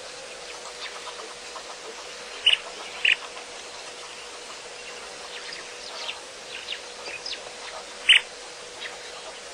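Wild birds chirping and calling in short falling notes, with three louder, sharper calls about two and a half, three and eight seconds in, over a faint steady hum.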